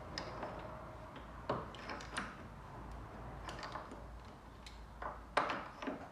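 Hand tools clicking and clinking against metal as a car's front suspension and hub are worked on by hand: a string of irregular light knocks, the loudest clunk about five seconds in.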